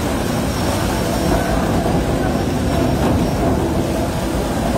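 Tunnel boring machine's cutterhead grinding through the rock face at breakthrough: a loud, steady heavy rumble.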